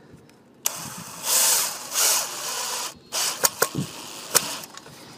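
DeWalt cordless drill driving a deck screw into a wooden stake. It runs for about two seconds with two louder surges, stops, and a few sharp clicks follow.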